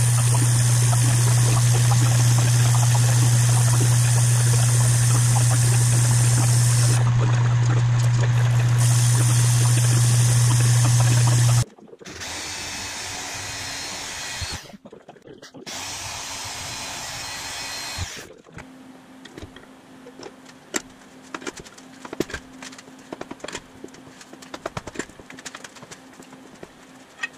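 Metal lathe running steadily while turning a steel part: a loud, steady hum with a high hiss. It cuts off abruptly about twelve seconds in. A metal-cutting bandsaw then runs for several seconds, more quietly. Near the end come light clicks and knocks from a part being handled in a bench vise.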